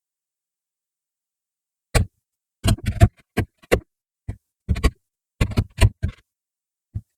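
An irregular series of short, sharp wooden knocks and taps, about a dozen, starting about two seconds in, from shaping a small glued-up pine and walnut block into a knob by hand.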